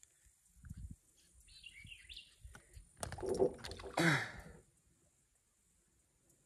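A few faint bird chirps about two seconds in, then two short louder sounds around three and four seconds in, the second falling in pitch; the sound drops out shortly after.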